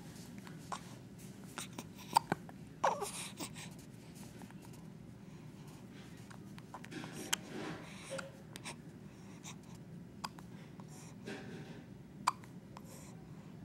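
Newborn baby hiccuping: several short, sharp hiccups at irregular intervals, the loudest about two seconds in.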